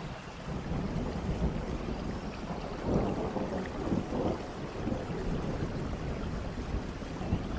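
Rain-and-thunder nature ambience: a steady rain hiss over low rolling thunder that swells about three seconds in and again a second later.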